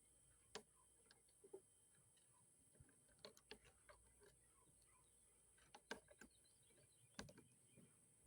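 Faint, scattered clicks and knocks at irregular intervals from parts of a semi-automatic Thompson being handled and fitted back together during reassembly.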